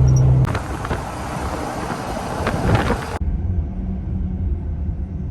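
Lifted Jeep on the road: a rush of wind and road noise that cuts off suddenly about three seconds in, leaving a quieter steady low engine hum.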